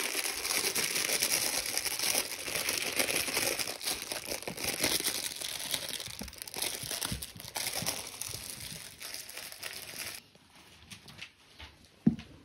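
A plush dog toy crinkling and rustling as a French bulldog puppy tugs and chews on it, a dense crackly noise that thins out and goes much quieter about ten seconds in.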